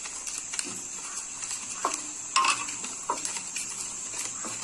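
Scattered light clinks and knocks, with a few short calls about two and three seconds in.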